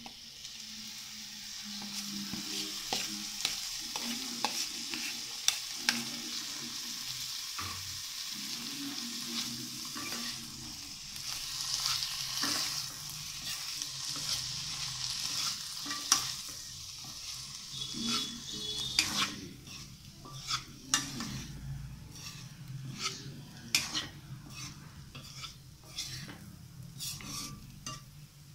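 Diced potatoes and carrots sizzling in hot oil with beetroot in a pan, stirred with a spatula. A steady hiss runs under many short clicks and scrapes of the spatula against the pan, which come more often in the second half.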